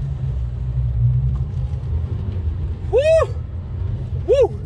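Dacia Duster II's 1.5 dCi four-cylinder diesel pulling hard up a steep hill in four-wheel drive, a steady low rumble heard inside the cabin, short of power near the top with the throttle floored. Near the end there are two short, rising-and-falling vocal exclamations.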